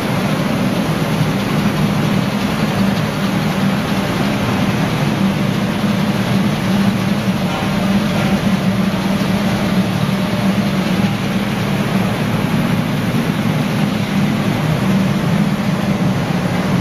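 PVC coating line for welded wire mesh running: a steady low machine hum under an even rushing noise from its motors and blowers.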